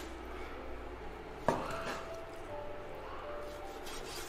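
Chinese cleaver slicing raw beef on a wooden cutting board, with one sharp knock of the blade on the board about a second and a half in.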